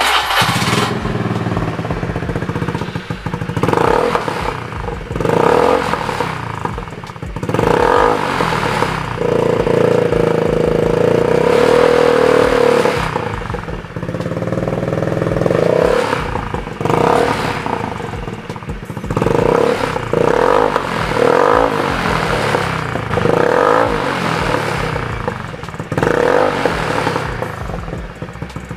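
Honda Beat scooter's stock single-cylinder four-stroke engine fitted with a Best 3 aftermarket exhaust, starting and then revved again and again in short blips, with one rev held for several seconds near the middle. The open exhaust note is very aggressive.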